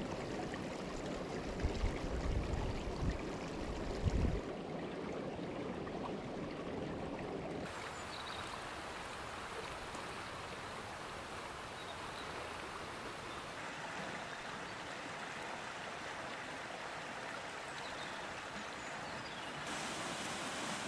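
Steady rushing of flowing water from an alpine stream. Low wind buffeting on the microphone runs through the first four seconds, and the water sound shifts abruptly in tone a few times.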